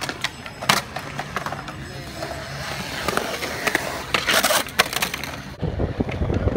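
Skateboard on concrete: wheels rolling, a few sharp clacks of the board, and a long scrape about four seconds in as the board runs on the lip of a concrete bowl. Near the end there is a heavier rumble of wheels on rough concrete.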